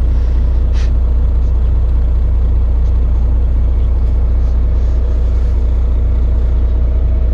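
Semi truck's diesel engine idling, a steady low rumble heard from inside the cab.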